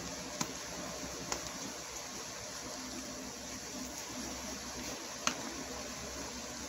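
Steady background hiss with three light clicks of hands handling a sealed card package, one near the start, one about a second and a half in and one about five seconds in.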